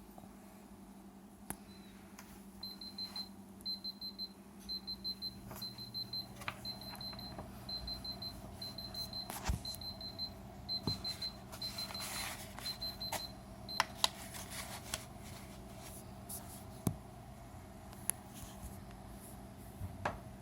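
Cat projection alarm clock's alarm beeping: short, high-pitched beeps in quick bursts, about one burst a second, stopping about fourteen seconds in. A few sharp clicks follow.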